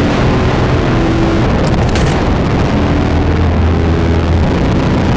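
Industrial drone music: a loud, dense wall of noise with low held tones that shift every second or so, and a brief crackle about two seconds in.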